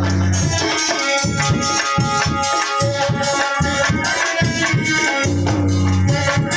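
Live Aalha folk music: a harmonium holding chords under a man's singing, with a barrel drum (dholak) keeping a quick, steady beat.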